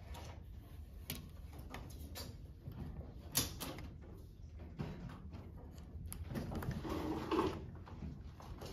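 Drafting tools being handled on a drafting table: scattered taps and clicks as a pencil and rulers are set down and picked up on the paper and the straightedge. A longer sliding scrape comes about six to seven seconds in.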